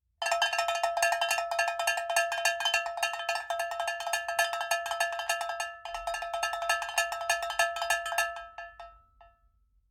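Rapid, dense strikes on ringing metal with a steady pitch. They break off for a moment about six seconds in, then resume and thin out to nothing near the end.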